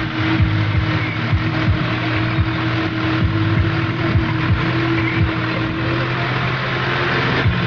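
New Holland farm tractor's diesel engine running steadily as the tractor drives slowly through a muddy field, heard close from the seat, with a continuous hum and a low thudding beat.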